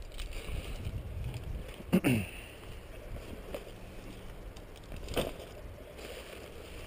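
Wind buffeting an action camera's microphone, a fluctuating low rumble. A short loud noise with a bending pitch comes about two seconds in, and a weaker sharp noise about five seconds in.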